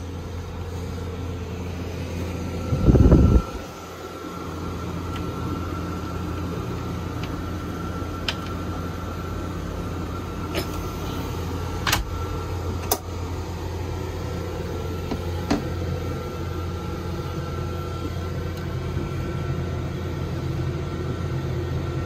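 Steady mechanical hum of a Mabru 12-volt, 12,000 BTU marine air conditioner running on battery power with shore power disconnected, with a faint steady whine over it. A brief loud low rumble comes about three seconds in, and a handful of sharp clicks follow later.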